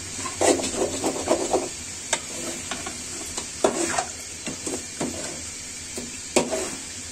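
Metal spoon scraping and clattering against a metal pan as spiced chicken is stirred in thick curry masala, over a steady frying sizzle. The masala and meat are being fried down together as the liquid dries.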